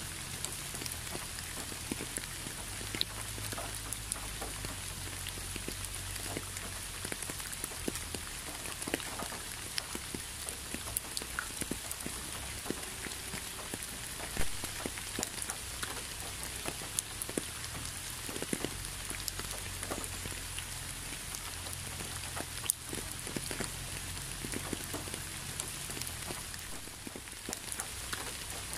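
Steady rain falling, with many separate drops tapping sharply on a surface over an even hiss. One tap about halfway through is louder than the rest.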